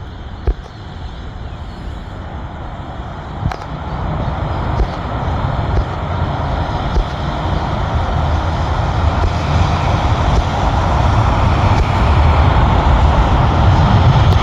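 Four-engined Airbus A380 jet airliner on arrival, its engine roar with deep low rumble growing steadily louder as it comes closer.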